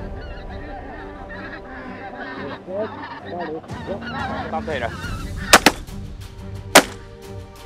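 Pink-footed geese honking as they come in over the decoys, then shotgun shots: a quick pair about five and a half seconds in and another about a second later, the loudest sounds.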